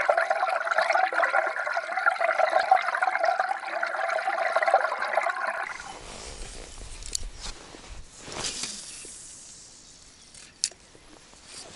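Water rushing and gurgling, heard through an underwater camera, for about six seconds. It cuts off sharply to quieter open-air sound with a few light clicks.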